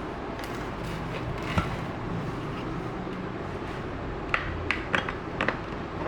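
A cluster of sharp plastic clicks and clacks from about four seconds in: the 2-in-1 dust bin and water tank of a Xiaomi E10 robot vacuum being unlatched and pulled out. A steady background hiss runs underneath.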